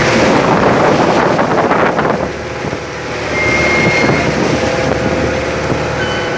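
Strong wind buffeting the microphone aboard a fishing boat at sea in stormy weather, with a steady engine drone underneath.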